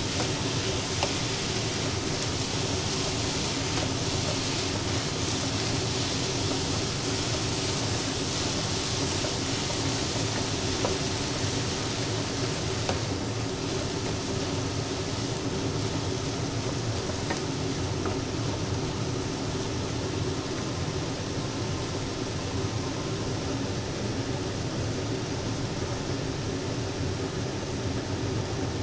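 Yellow chives and scrambled egg sizzling in a frying pan as they are stir-fried with a wooden spatula: a steady hiss with a few light scrapes of the spatula.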